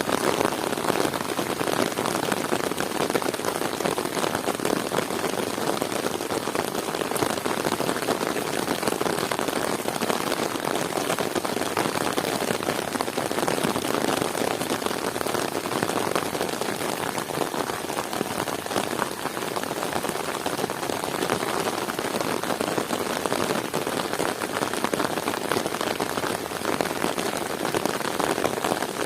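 Heavy rain falling steadily, a dense, even patter of drops with no let-up.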